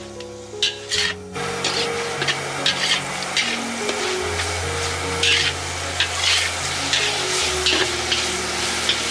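Food sizzling in a hot pan, with a utensil stirring and scraping it in repeated strokes. Two sharp clicks come just before the sizzle starts about a second and a half in.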